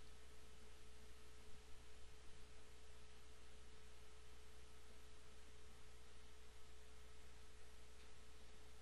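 Faint steady electrical hum and hiss with a thin steady tone: the recording's background noise, with nothing else happening.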